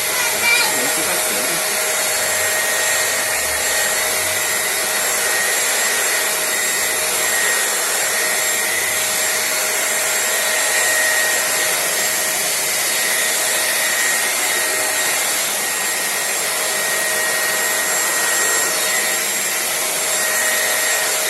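Britânia 1000 W upright vacuum cleaner running steadily: a whine over the rush of air as it sucks crumbs and dirt off the floor.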